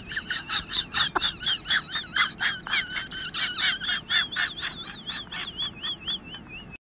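Birdlike high chirping that runs into a warbling trill, its pitch rising and falling about four times a second; it cuts off suddenly near the end.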